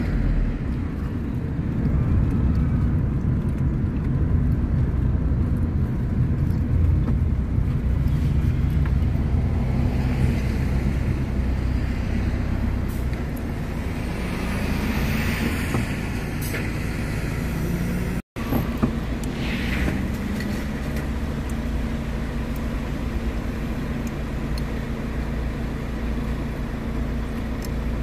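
Car engine and road noise heard from inside a moving car: a steady low hum that cuts out completely for a split second about eighteen seconds in.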